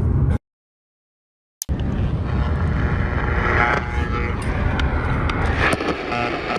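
Road and engine noise inside a moving car, a steady low rumble. About half a second in it cuts to dead silence for a little over a second, then the car noise resumes.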